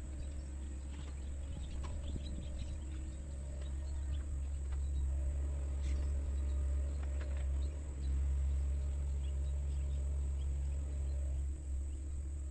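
Diesel engine of a Sunward mini excavator running with a steady low rumble that gets louder from about halfway through, with faint scattered clicks and chirps over it.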